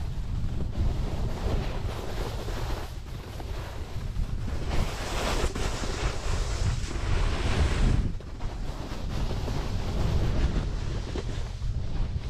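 Wind buffeting the microphone of a camera moving fast down a ski slope, over the hiss of a snowboard sliding and carving on snow. The hiss swells in the middle and drops away about eight seconds in.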